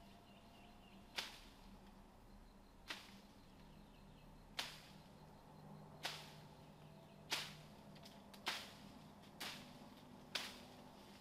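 A series of eight sharp cracks over a faint steady background, spaced well over a second apart at first and coming faster toward the end.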